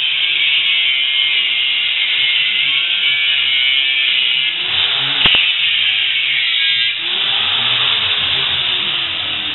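Angle grinder cutting into a steel bicycle frame: a steady, high-pitched grinding, with a couple of sharp clicks about five seconds in and a change in the grinding sound around seven seconds.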